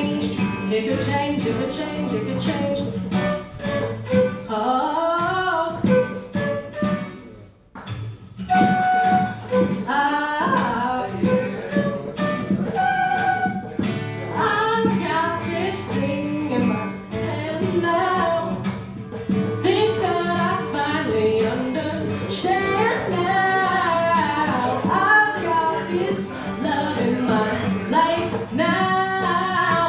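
A female voice singing a pop song with guitar and a drum. The drum gives a steady beat of light strikes. The music nearly stops for a moment about eight seconds in, then the singing comes back in.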